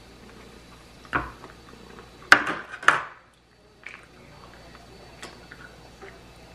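A metal fork clinking and scraping against a dinner plate: a light knock about a second in, then two louder clatters close together around the middle as the fork is laid down on the plate.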